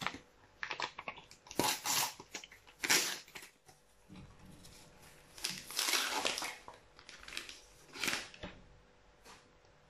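A paper sticker packet being torn open and crinkled by hand: a run of irregular rustles and rips, with the loudest tears about two, three, six and eight seconds in, fading out near the end.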